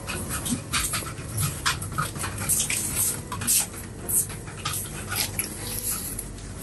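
Small dog panting in short, breathy, irregular puffs close by.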